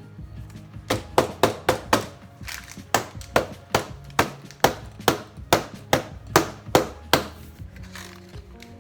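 Background music with a run of about eighteen sharp knocks, two to four a second, starting about a second in and stopping about seven seconds in.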